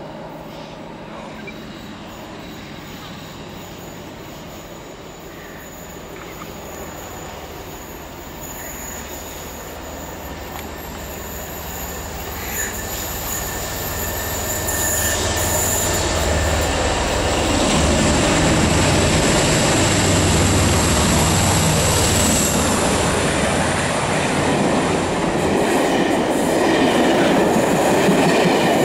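A pair of Class 47 diesel locomotives (47593 and 47810), each with a Sulzer twin-bank 12-cylinder engine, approaching and passing with a train of coaches. The deep engine note grows louder from about halfway and peaks as the locomotives go by, over a thin high whine. Near the end it gives way to the rumble and clatter of the coaches running past.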